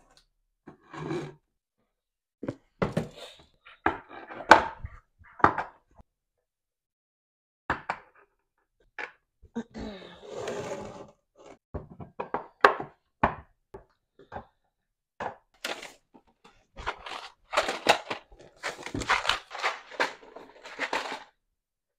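Irregular thuds, knocks and clatter of household objects being handled and set down, with a short rustle near the middle.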